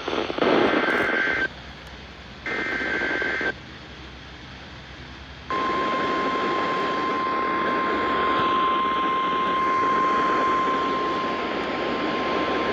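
NOAA Weather Radio Emergency Alert System signal. Two raspy, buzzing SAME header data bursts about a second each sound in the first few seconds, with hiss between them. About five and a half seconds in, the steady 1050 Hz warning alarm tone starts and holds, heard through radio hiss. Together they mark the start of a broadcast warning, here a severe thunderstorm warning.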